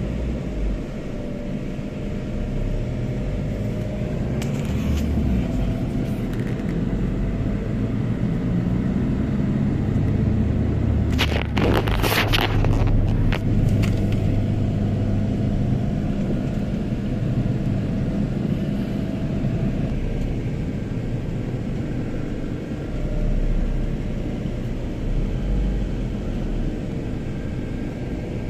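Low, steady engine and road rumble of a car moving slowly through city traffic, heard from inside the vehicle. A cluster of sharp clicking rattles comes about eleven seconds in and lasts a few seconds.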